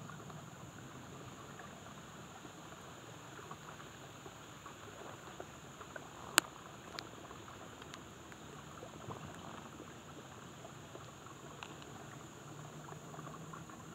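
Faint outdoor ambience: a steady high, thin drone of insects, with scattered small crackles in dry leaf litter and one sharp click about six seconds in.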